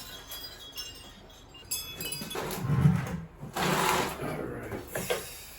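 Metal wind chimes being moved by hand, the tubes clinking and ringing high and fading. A second set of clinks comes near two seconds in, then louder rustling and a couple of dull thumps as they are handled and set down.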